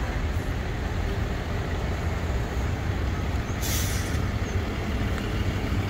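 Heavy truck's engine idling with a steady low rumble, and a short hiss of released air a little past halfway, like an air-brake release.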